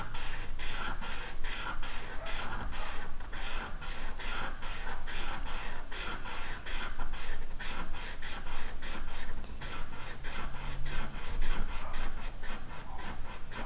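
Black felt-tip marker scratching on paper in quick back-and-forth strokes, about four a second, as a solid area is filled in with ink.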